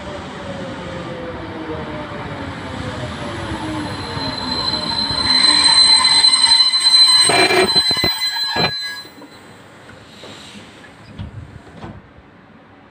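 Electric suburban train pulling into a station: its running whine falls in pitch as it slows, then a loud high squeal as it brakes cuts off abruptly when the train comes to a halt, about nine seconds in. A few faint knocks follow.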